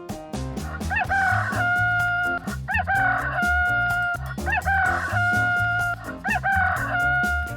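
Rooster crowing cock-a-doodle-doo four times, about two seconds apart. Each crow rises sharply, then holds one long steady note. Background music with a steady beat plays underneath.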